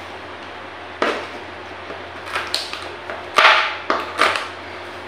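Kitchen knife chopping raw cassava on a plastic cutting board: a series of sharp, irregular strikes of the blade against the board, the loudest about three and a half seconds in.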